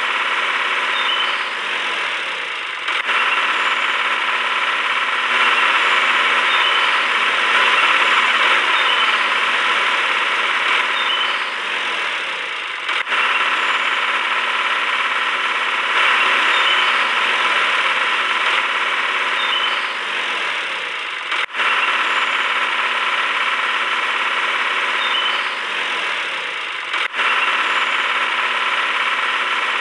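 Small electric motor of a miniature homemade juice machine running steadily with a high whine while it pumps juice out of its spout. The sound breaks off for an instant a few times.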